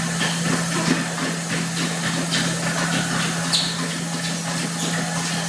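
Two treadmills running: a steady motor hum under the repeated thud of running feet landing on the belts.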